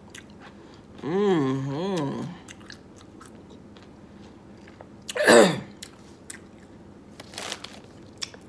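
A woman chewing a bite of Kool-Aid-soaked dill pickle, with small crunching clicks throughout, and a wavering hummed "mm-mm" about a second in. About five seconds in comes a brief loud vocal sound that drops in pitch, the loudest thing here, and a short breath follows near the end.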